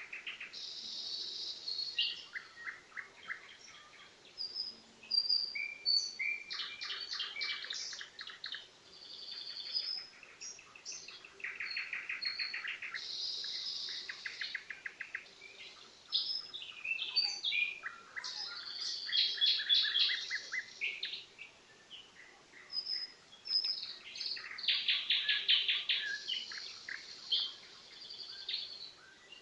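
Nightingale singing: a string of varied phrases, fast runs of repeated notes alternating with high clear whistles, broken by short pauses between phrases.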